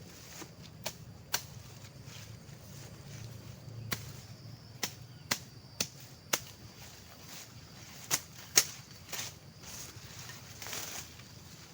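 A series of about a dozen sharp strikes or chops at irregular intervals, the loudest a pair about eight seconds in, over a faint steady high hiss.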